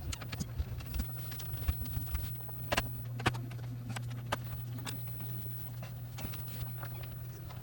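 Irregular small clicks and taps from handling the PlayStation 5's casing parts and screws during reassembly, over a steady low hum.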